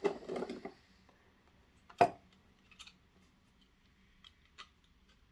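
Handling sounds in a cardboard box as loose model-railway C-track pieces are lifted out: a brief rustle, then a sharp plastic click about two seconds in and a few light clicks afterwards.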